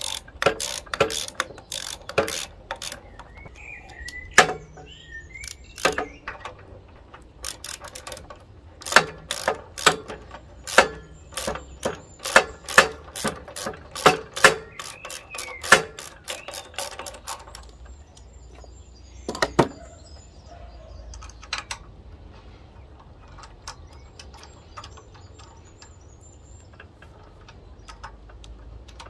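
Socket ratchet wrench clicking in quick runs as the bolts holding a new pump to a pressure washer's petrol engine are done up. The clicking stops after about sixteen seconds, with one more click a few seconds later.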